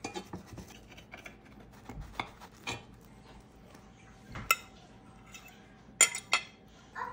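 Metal fork scraping and tapping against a cast iron skillet as a slice of Dutch baby pancake is cut and lifted, with sharp clinks of the utensils on a ceramic plate, one about halfway through and two close together near the end.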